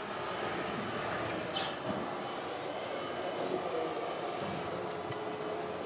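Radio-controlled scale truck driving, its running noise a steady rumble within the hall's background din, with a few faint short high clicks.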